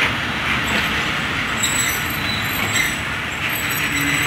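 Passenger train coaches rolling past on the near track, giving a steady rumble and hiss of wheels on rail with thin, high wheel squeals. A low steady hum comes in near the end.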